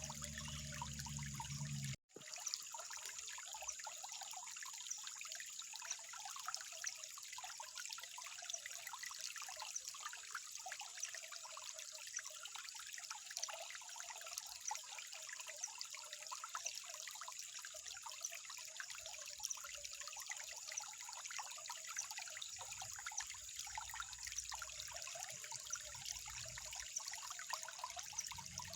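Water trickling steadily, with a dense patter of small splashes and gurgles. The sound cuts out for a split second about two seconds in.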